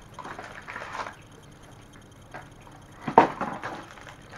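Blind-box packaging being torn open and crinkled by hand: soft rustling through the first second, then a sharper crackle of wrapping about three seconds in.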